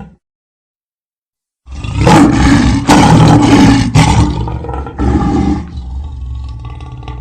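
Lion roar sound effect. A long, loud roar starts about a second and a half in and lasts about two and a half seconds, a shorter roar follows about a second later, and then comes a quieter, low steady rumbling growl.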